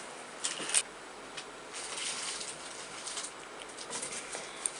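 Light handling noises: a couple of sharp clicks in the first second, then faint scattered ticks and rustling as hands set a decoration on a pudding cup.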